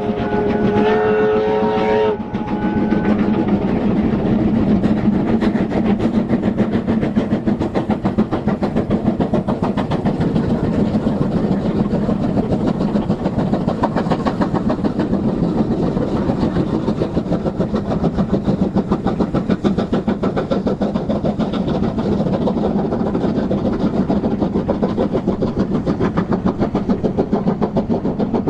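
USATC S160 2-8-0 steam locomotives multiple-heading a train. A steam whistle sounds for about the first two seconds, then rapid, overlapping exhaust beats from the locomotives working together carry on throughout.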